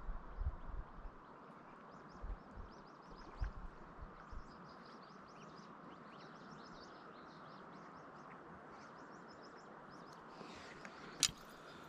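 Small birds chirping, a long string of short high chirps over a faint steady outdoor background, with one sharp click near the end.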